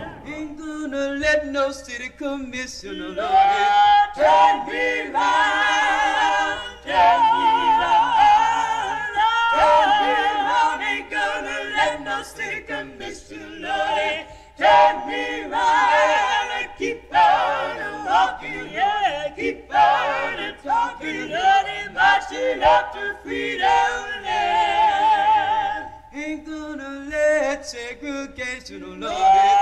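Choir singing a cappella: several voices in phrases, with the held notes wavering in a wide vibrato.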